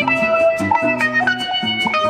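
Live African band playing an instrumental passage: a clean, bright electric guitar melody over a bass guitar line, with a drum kit keeping time in steady cymbal ticks about four a second.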